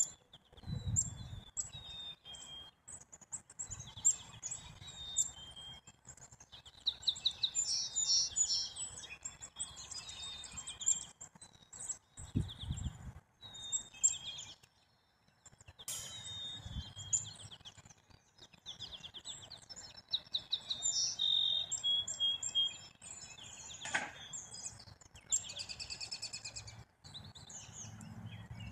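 Songbirds chirping and calling in quick, overlapping runs of high notes and short trills, with a few soft low thumps.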